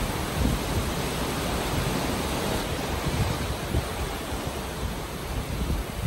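Steady rush of sea water churning along the side of a moving ship, with wind buffeting the microphone in low gusts, the strongest about half a second in and around three seconds in.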